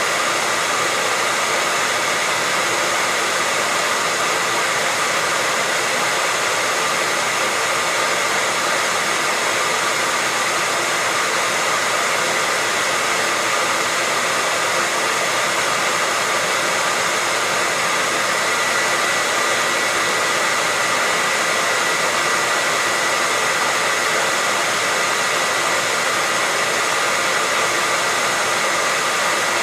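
Hair dryer running continuously on a steady setting: an even rush of blown air with a faint high whine from the fan motor.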